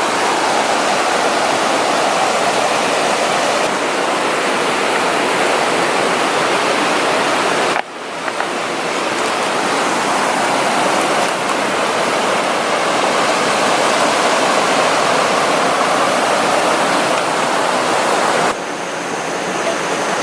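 Steady rushing of a nearby stream, loud and even, with a brief abrupt drop about eight seconds in.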